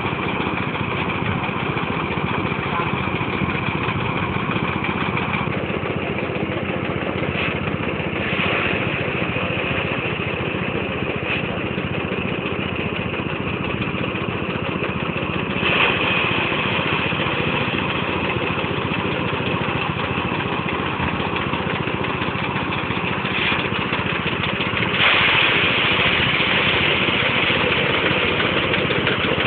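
Small stationary diesel engine running steadily, driving a rice thresher's spinning drum as sheaves of rice are fed into it. The threshing noise gets louder about 25 seconds in.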